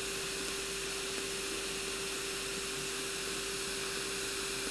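Steady hum with one unchanging mid-pitched tone over an even hiss.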